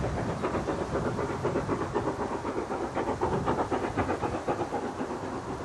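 GNR Gresley N2 0-6-2T tank locomotive No. 1744 working a train under steam, its exhaust beating in a rapid, even rhythm and growing a little louder around the middle.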